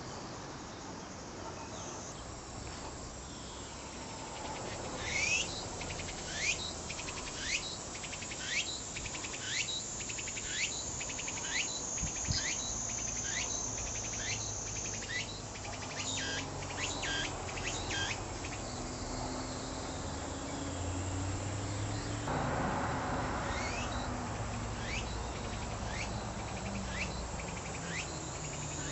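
Tsukutsukuboushi cicada (Meimuna opalifera) singing its repeated phrase: a series of short rising calls about one a second. The calls pause in the middle and start again near the end, over a steady high insect hiss.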